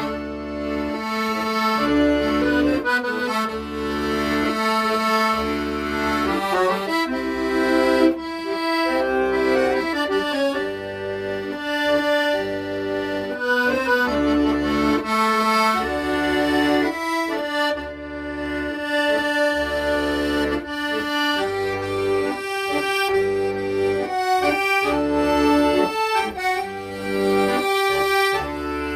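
Accordion playing a slow, sentimental melody in sustained notes over a steady, evenly pulsing low accompaniment.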